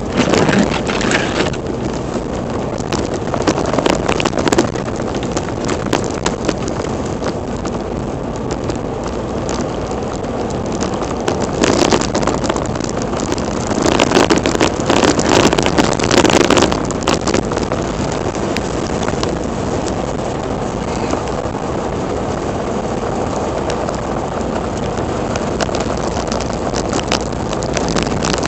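Blizzard wind blowing over the microphone as a steady rush, swelling in stronger gusts a few times, the longest about halfway through.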